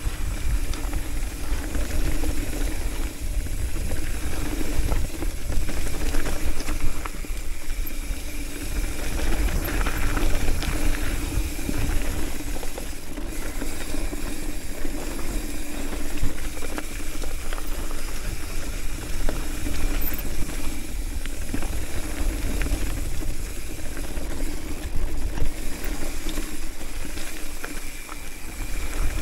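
Hardtail mountain bike rolling fast downhill on a dirt and gravel trail: a steady rush of wind buffeting the microphone over the hum of the tyres, with small rattles and clicks from the bike over the rough surface.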